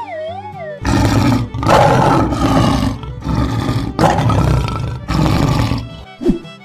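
A lion roaring, several long roars in a row starting about a second in, over background music.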